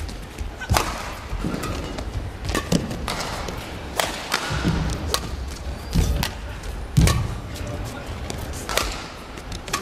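Badminton rally: sharp racket strikes on the shuttlecock every second or so, with the players' footfalls thudding on the court.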